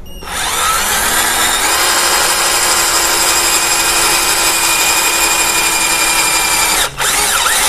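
A 12-volt cordless drill turns a twist bit through a thin steel bar about 2–3 mm thick. The motor whines steadily under load while the bit cuts, stops for an instant near the end, then starts again.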